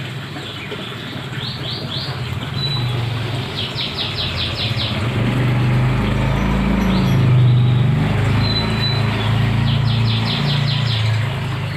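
Drain pump salvaged from a front-loading washing machine, humming steadily as it circulates pond water, with the water's rush and splash. A bird calls over it in a few quick runs of chirps.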